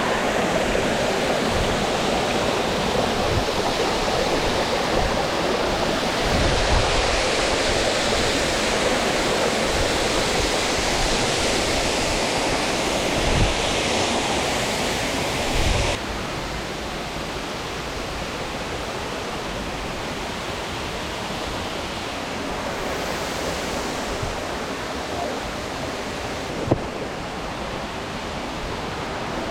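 Steady rush of a tall waterfall falling into a rainforest creek. About halfway through it drops to a quieter level, and there are a few low thumps and a single sharp click near the end.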